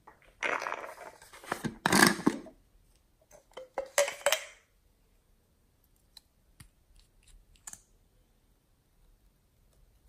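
Hands handling small plastic containers: two bursts of rustling and scraping in the first half, then a few light clicks as a small plastic tube is worked open.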